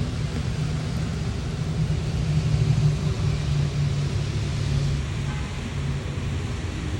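Steady rain falling, with a continuous low rumble under it.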